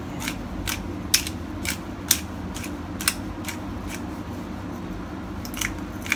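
Hand pepper mill grinding black pepper: a run of sharp clicks, about two a second, as the top is twisted. After a pause of a couple of seconds come two more clicks near the end.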